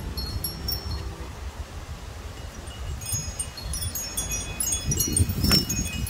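Hanging wind chime of metal tubes ringing as the wind swings its striker against the tubes, with scattered high tones that grow busier about halfway through and one louder strike near the end.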